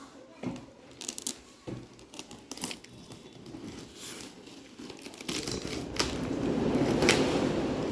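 Packaging on a 3D printer's box being handled and torn open: scattered rustles and knocks, then a longer, louder stretch of crinkling and tearing from about five seconds in.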